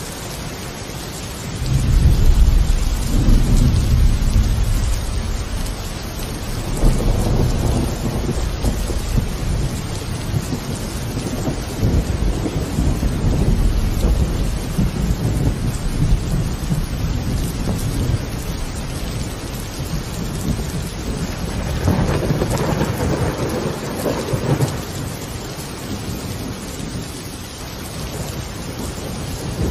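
Steady rain with several low rolls of thunder, the strongest starting a couple of seconds in and others later on.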